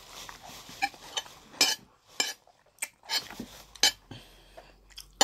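Metal spoon scraping and clinking against a plate while scooping up jollof rice: about ten short, sharp clinks at an uneven pace, a few of them ringing briefly.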